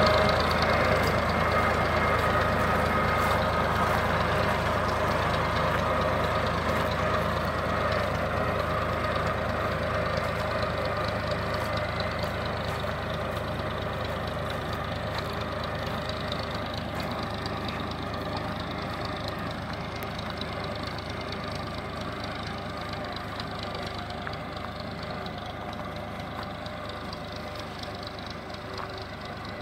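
Small tractor's engine running steadily as it pulls a rotary harrow across the field, growing steadily fainter as it moves away.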